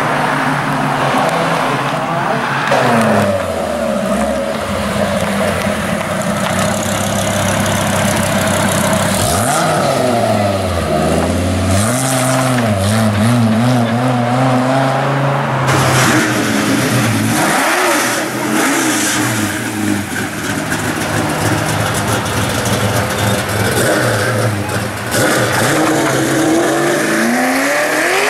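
Hot rods and sports cars drive past one after another, their engines accelerating with revs that rise and drop as they shift and pull away.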